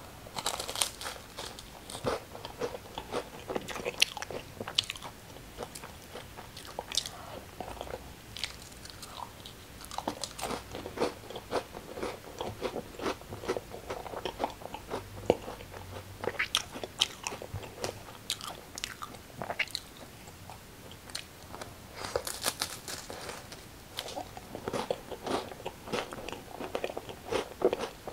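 Crisp crackers being bitten and chewed close to the microphone: runs of sharp crunches separated by short pauses.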